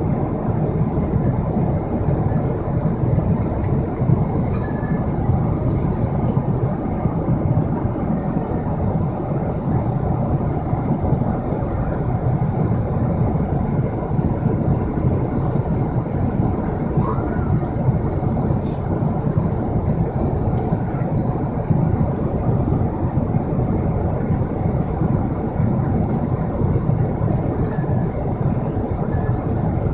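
Steady low roar of a Boeing 777-300ER passenger cabin in flight, the mix of airflow and engine noise heard from a seat.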